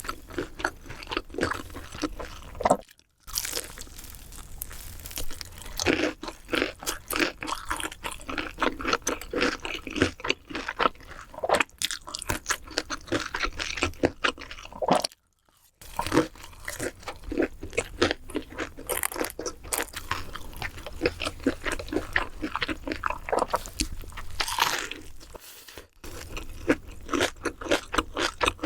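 Close-miked eating: crunchy food being bitten and chewed, a dense run of rapid crackling crunches. The crunching breaks off twice for a moment of silence, about three seconds in and about fifteen seconds in.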